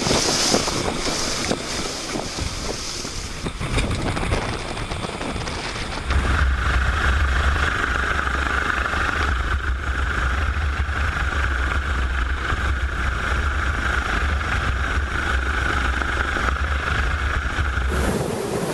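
Gusty wind noise, then about six seconds in a helicopter's steady rotor and turbine noise takes over while it hovers, a low drone with a steady whine above it, cutting off abruptly just before the end.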